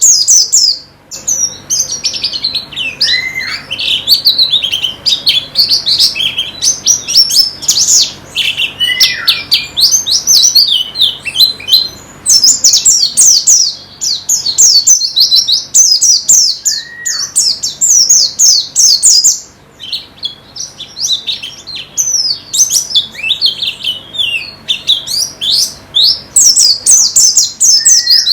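White-eyes (pleci) singing a fast, high twittering song almost without pause. A lower, down-slurred call comes in four times, about 3, 9, 17 and 28 seconds in.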